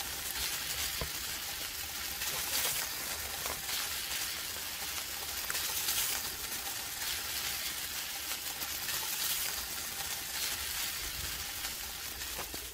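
Hot oil sizzling steadily in a deep fryer, with a fine crackle and a few slightly louder swells.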